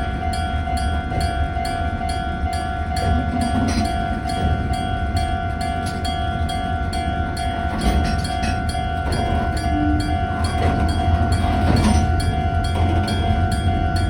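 Japanese level-crossing warning bell ringing in a steady repeating rhythm, about two strikes a second, over the low steady drone of a diesel freight locomotive.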